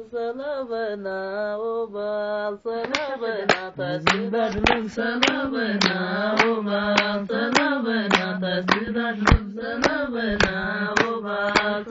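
A woman singing unaccompanied in long, wavering held notes. Rhythmic hand-clapping joins about three seconds in, at roughly two to three claps a second.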